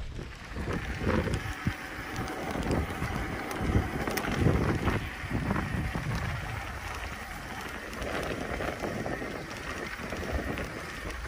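Wind buffeting the microphone over the rattle of an electric mountain bike rolling over a rough dirt trail, with a few sharp clicks and knocks.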